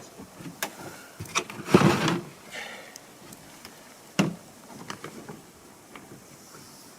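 Scattered knocks and clatter of things being handled and moved, with a longer scraping rustle about two seconds in and a sharp knock a little after four seconds.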